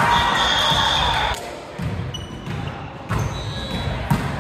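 Volleyball game in a gym: a dense burst of noise in the first second or so, then brief high squeaks and a sharp ball thump about four seconds in, ringing in the hall.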